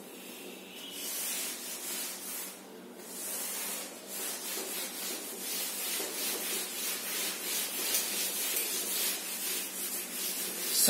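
Blackboard duster rubbing back and forth on a chalkboard, erasing chalk in quick repeated strokes; it starts about a second in, stops briefly near three seconds, then goes on.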